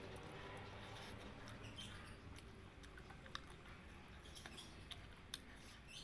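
Faint close-up chewing of spicy fried chicken and rice, with small wet mouth clicks scattered through it; the two sharpest come about three and five seconds in.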